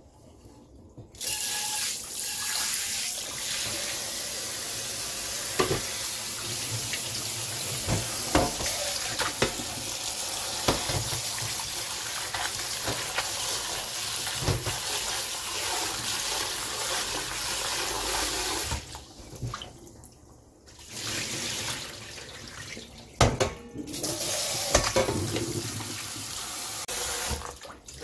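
Kitchen tap running into a stainless steel bowl of freshly blanched pepper leaves in a steel sink, with hands swishing the leaves and a few sharp metal clinks, as the leaves are rinsed quickly after blanching. The water stops for about two seconds past the middle, then runs again and stops near the end.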